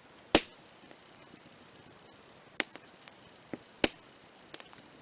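Wood campfire crackling: a few sharp, irregular pops. The loudest comes about a third of a second in and another comes near four seconds, with smaller snaps between them.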